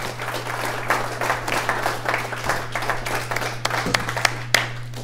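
Small audience applauding, a dense patter of hand claps that stops near the end.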